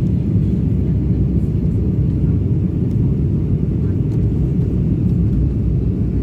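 Steady low rumble of a vehicle in motion heard from inside it, with no changes.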